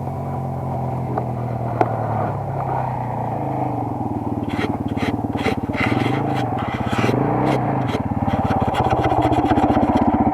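Single-cylinder enduro motorcycle engine running under way, its pitch stepping up about a third of the way in and then rising and falling with the throttle. Repeated short knocks and scrapes from the trail come through over the second half.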